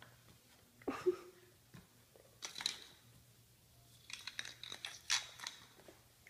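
Faint scrapes and clicks on a tiled floor, then a quick run of sharp clicks about four seconds in.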